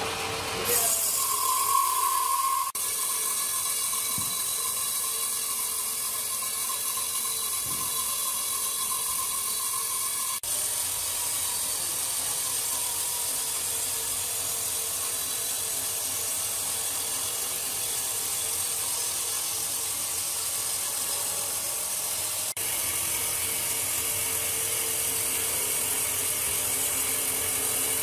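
Large horizontal band sawmill running, its blade cutting lengthwise through a big squared log with a steady hiss. A brief higher whine sounds in the first few seconds.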